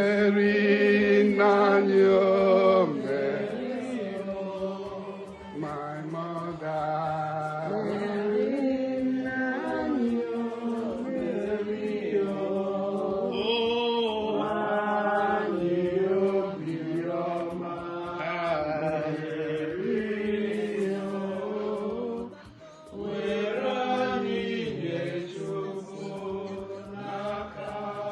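Worship song sung in a chant-like style, with long held notes that step up and down in pitch. It breaks off briefly about 22 seconds in, then resumes.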